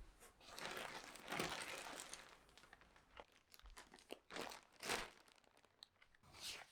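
Packaging crinkling and tearing as a parcel is unwrapped: a long rustle over the first couple of seconds, then a few short, sharp crinkles.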